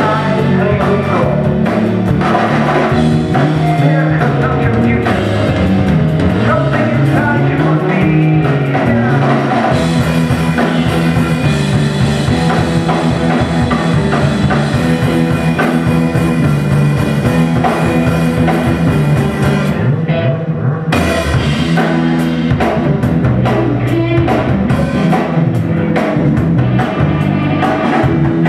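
Live rock band playing loud: drum kit, electric guitar and bass, with singing. The cymbals and high end drop out for about a second around twenty seconds in, then the full band comes back.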